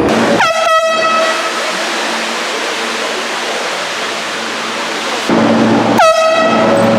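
A handheld air horn blasting twice, each blast under a second long: once about half a second in and again about six seconds in. Each blast starts with a quick drop in pitch and then holds one loud, blaring tone.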